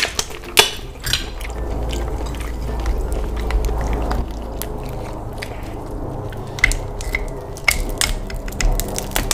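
Cooked king crab legs being bent and pulled apart at the joints: the shell creaks and clicks with scattered sharp cracks. A steady low hum runs underneath.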